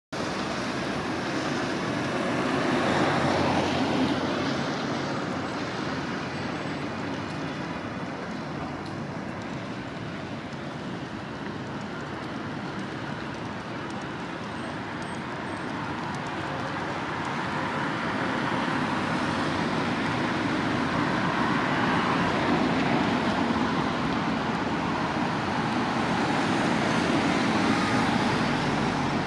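City street traffic: a steady wash of tyre and engine noise from cars passing on the road. It swells about three seconds in and again through the last ten seconds as vehicles go by close.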